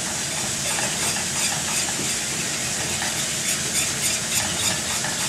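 Hot pork-chop drippings sizzling in a stainless steel skillet as flour is whisked in for a gravy roux. The wire whisk's wires tick and scrape against the pan in quick, repeated strokes from about a second in.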